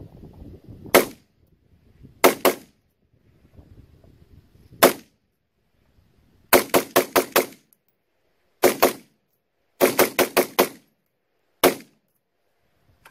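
AR-15-type rifle fired semi-automatically from a bench rest: single shots, pairs and quick strings of five or six rapid shots, about twenty in all, running the 20-round magazine empty.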